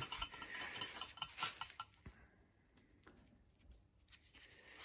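Light metallic clinking and scraping of small metal parts and tools being handled, busiest in the first two seconds, then a few faint ticks.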